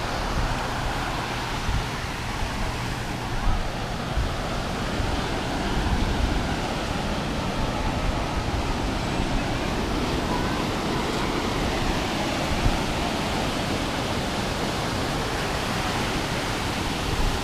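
Ocean surf washing onto a sandy beach, a steady rushing noise, with now and then a low rumble of wind on the microphone.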